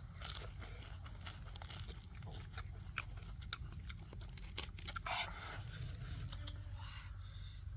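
Someone chewing and biting food, with scattered small crunches and clicks.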